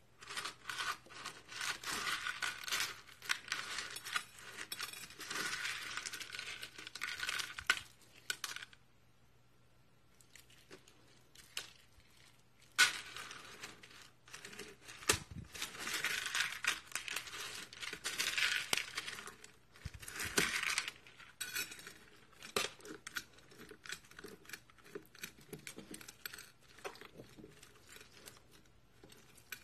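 Clear slime being pressed and kneaded into coffee beans in a plastic tub: dense crackling and popping with the beans clicking against each other. It stops for a few seconds about a third of the way in, resumes, and thins to scattered clicks near the end.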